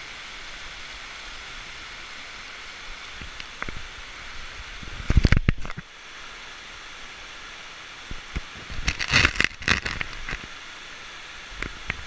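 Steady rushing of a large waterfall. About five seconds in comes a loud thump and rustle of the camera being handled, and around nine to ten seconds a run of loud crackling knocks.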